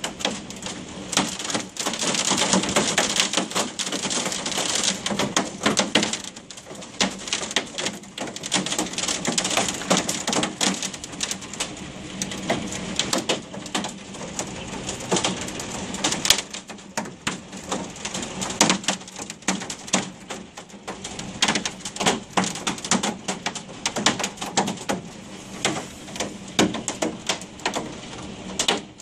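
Hailstones pelting the office window and the building, heard from inside behind the glass: a dense, irregular rattle of sharp clicks over a steady hiss, heaviest in the first ten seconds or so and easing a little after.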